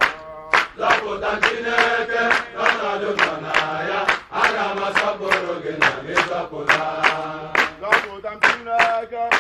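A group of men singing a worship song together in unison, clapping hands on a steady beat of about two claps a second.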